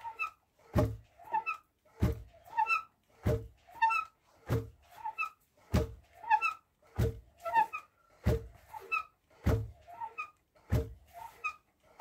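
Wooden dhenki pounding rice into flour: the heavy wooden pestle drops into the pit with a dull thud about once every second and a quarter, in a steady rhythm. A short squeaky sound comes between each stroke as the beam lifts.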